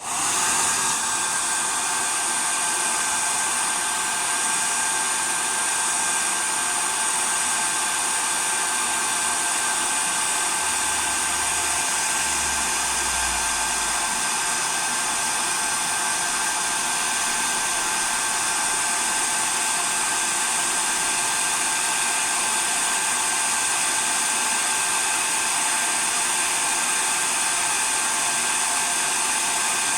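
Hair dryer switching on suddenly and running steadily: a constant rush of air with a steady whine of several tones over it.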